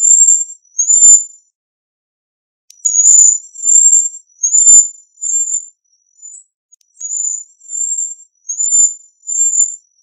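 Cedar waxwing calling: a string of about ten high, thin whistled notes, each brief, with a pause of over a second after the first two.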